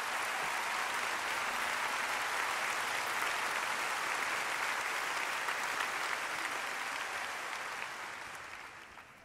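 Large audience applauding steadily, fading away over the last two seconds.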